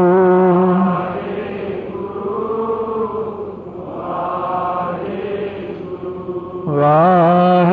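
Sikh devotional chanting (simran) in long, held, wavering notes. A loud held note ends about a second in, a softer, quieter passage follows, and loud sung notes return near the end.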